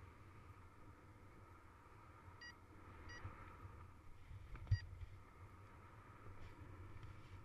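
Faint steady wind rumble on the camera microphone in paraglider flight, with three short electronic beeps from the pilot's variometer and a single sharp knock about halfway through.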